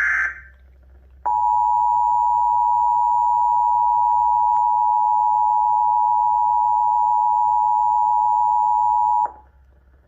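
Emergency Alert System two-tone attention signal, 853 and 960 Hz sounded together, held steady for about eight seconds and then cut off sharply; it announces a Required Monthly Test. In the first instant the last SAME digital header burst trails off, and then there is a second of quiet before the tone.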